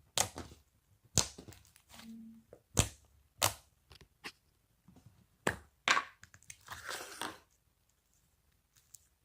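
Slime being squished and poked by hand, giving a series of sharp, irregular clicking pops and a longer crinkly stretch about seven seconds in.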